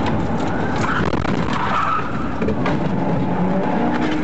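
Police car driven hard through tight turns, heard from inside the cabin: engine running and tyres squealing as it brakes and corners.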